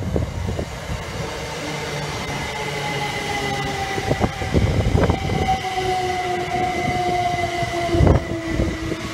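A Great Northern Class 387 Electrostar electric multiple unit running past along the platform, with a low rumble from its wheels and several steady whining tones that fall slowly in pitch. Sharp knocks come a little before the middle, at the middle and near the end.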